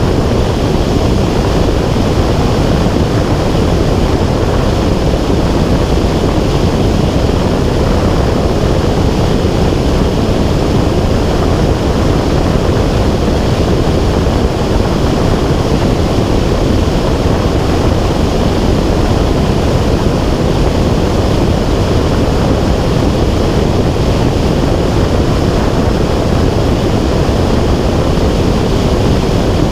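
Steady, loud rush of wind buffeting an action camera's microphone in flight high above the ground, with no breaks or changes.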